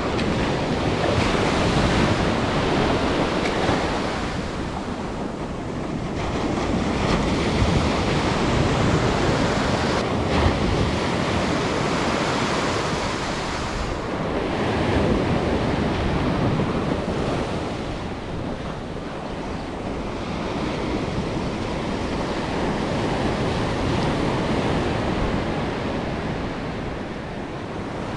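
Ocean surf washing ashore, a steady rush that swells and eases about every six to eight seconds, with wind buffeting the microphone.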